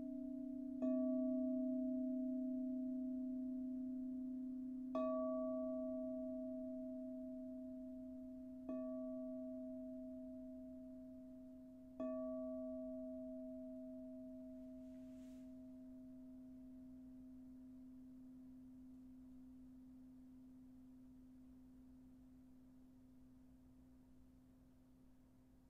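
A singing bowl struck four times a few seconds apart, each strike a short tap followed by a long ring of a deep steady hum and a higher overtone. After the last strike the ringing slowly fades away.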